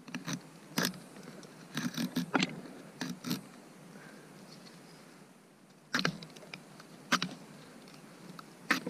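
Short, sharp cutting strokes of a hand carving cutter digging into the end grain of a wooden block as the middle of a cup is hollowed out. There is a quick flurry of strokes at first, then single strokes spaced a second or so apart. The wood is still cutting hard.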